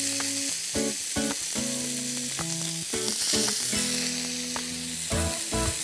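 Köfte and sauce-dipped bread sizzling in a hot ridged grill pan, a steady hiss. Background music with held notes that change every second or so plays over it.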